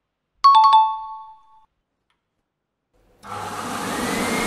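A few quick metallic strikes that ring briefly. Then an electric heat gun is switched on, its fan blowing steadily with a faint rising whine as it comes up to speed.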